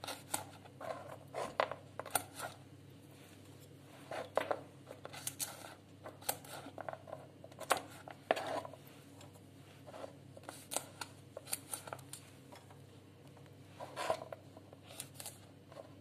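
Walnut kernels being split into smaller pieces: irregular small cracks and clicks, a few at a time with short pauses between.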